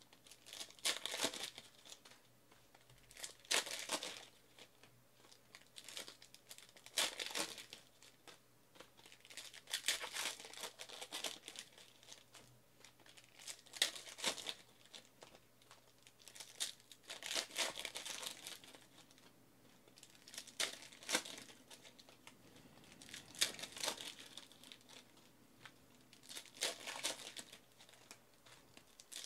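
Foil trading-card packs being torn open and crinkled by hand, in about ten short bursts of crackling every few seconds.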